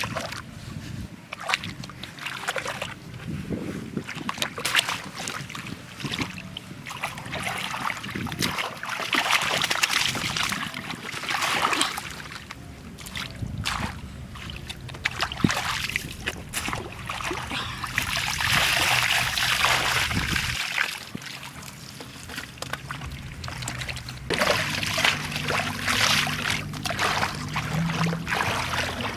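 Shallow water splashing and sloshing in irregular surges, with many small knocks.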